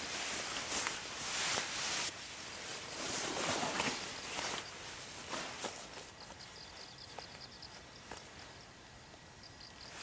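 Nylon puffer jacket rustling as it is pulled on, then quieter handling as the zipper's bottom end is fitted together. A faint pulsing insect trill sounds in the background from about halfway.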